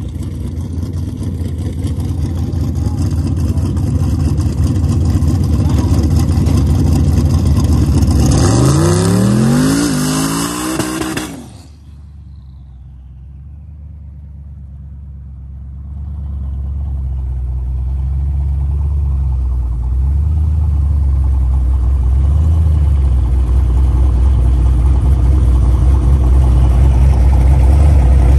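Twin-turbo Chevrolet Silverado pickup doing a burnout on drag slicks: engine held at high revs over tyre noise, revving sharply higher about eight seconds in, then cutting off suddenly. Afterwards the engine idles with a low, uneven rumble that grows louder toward the end.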